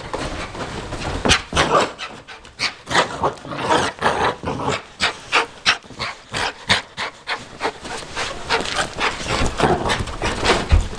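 A dog panting hard in quick, uneven breaths.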